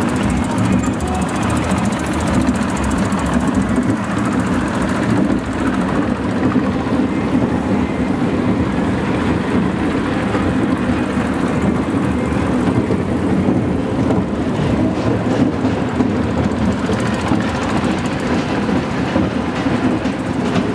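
Bruco Mela caterpillar coaster train running round its track, heard from on board: a steady rumble of its wheels on the steel rails.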